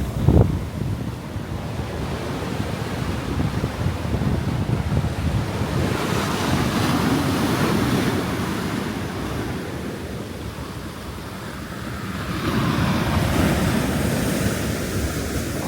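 Sea waves washing onto the shore, the rush swelling twice, with wind buffeting the microphone and a brief low thump at the start.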